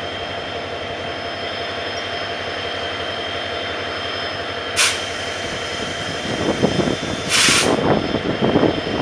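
CC 205 diesel-electric locomotive running with a steady drone and high steady tones. There is a short hiss about halfway, then a longer hiss near the end as louder, uneven rumbling sets in.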